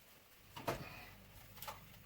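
Two short clicks or knocks of small parts being handled on a workbench, the first and louder under a second in, the second weaker about a second later.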